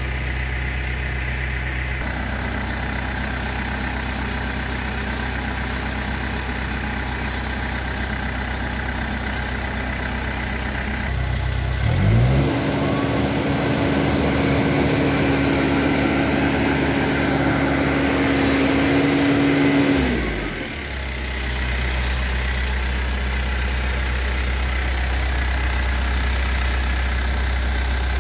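Backhoe loader's diesel engine idling, then revved up about twelve seconds in and held high and steady for about eight seconds before dropping back to idle.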